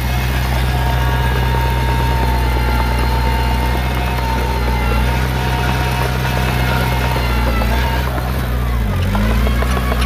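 Diesel engine of heavy earthmoving equipment running steadily, its pitch dipping briefly and recovering about nine seconds in.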